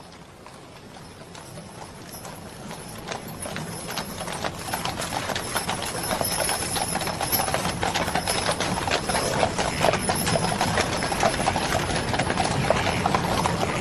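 Hooves of many horses moving together, a dense clatter that grows louder over the first several seconds and then keeps up steadily.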